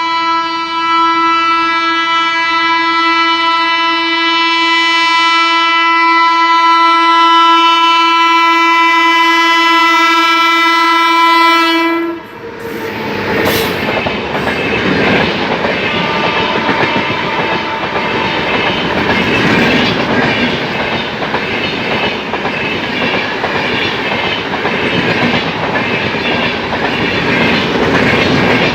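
WAP-7 electric locomotive's twin-tone horn held in one long steady blast that cuts off after about twelve seconds. Then the passing train's wheels clatter rhythmically over the rail joints.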